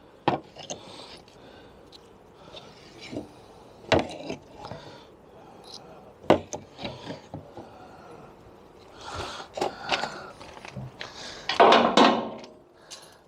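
Wooden pallet boards being knocked and handled: three sharp knocks in the first half, then scraping and clattering of planks, loudest near the end.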